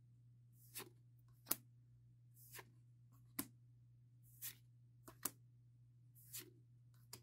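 Faint flicks and swishes about once a second as Pokémon trading cards are slid one by one off the front of a hand-held stack and tucked behind it.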